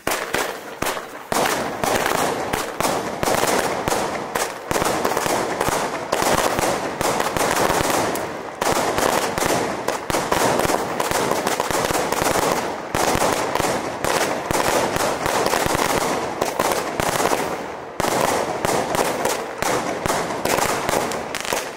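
A multi-shot fireworks cake firing a rapid, continuous volley of shells, launches and crackling bursts, with a few brief lulls.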